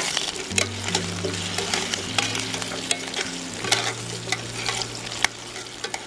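Food sizzling as it fries in a pan, stirred with a utensil that clicks and scrapes against the metal at irregular moments.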